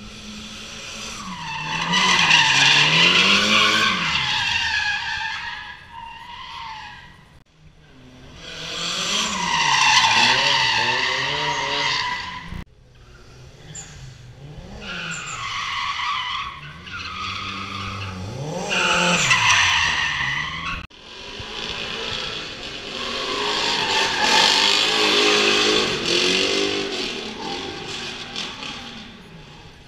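Drift car sliding past with its tyres squealing and its engine revving up and down hard, in four long passes that each swell and fade over several seconds.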